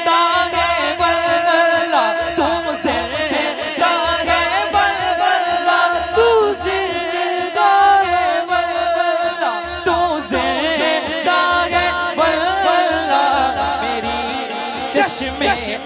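Men singing an Urdu naat into microphones in long, wavering melodic lines, the lead voice joined by the others, over a regular low pulse.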